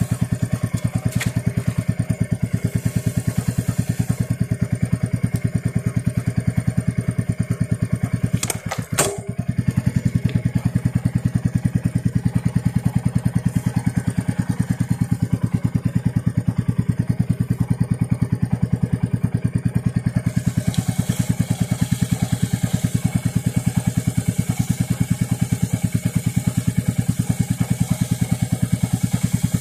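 Motorcycle engine idling in gear with a fast, even exhaust beat, turning the rear wheel and drive chain. The beat breaks off briefly with a couple of clicks about nine seconds in, then runs on unchanged.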